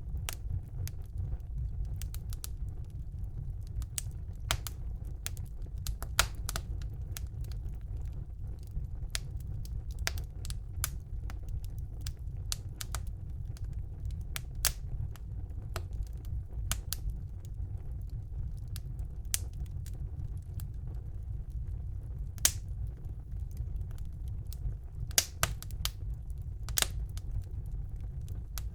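Wood fire burning in a fireplace: a steady low rumble of the flames with irregular crackles and sharp pops from the burning logs, a few pops louder than the rest.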